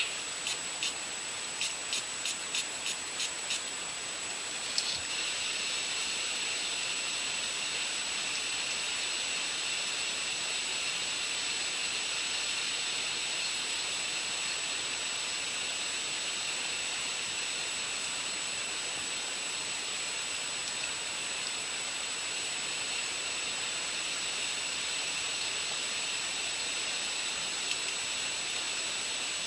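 A steady hiss with a constant high, thin whine over it, preceded by a run of short, evenly spaced clicks in the first four seconds.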